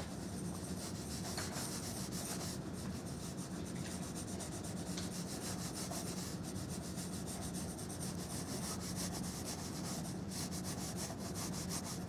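Pencil lead scratching across drawing paper in a continuous run of quick, short sketching strokes.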